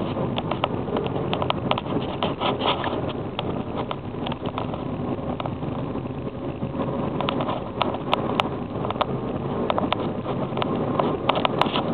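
Toyota Corolla 1.6 being driven: steady engine and road noise, broken by frequent irregular sharp clicks and rattles.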